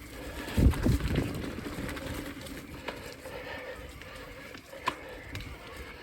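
A mountain biker breathing hard close to the microphone while riding, heaviest about half a second to a second in. Two sharp clicks come later.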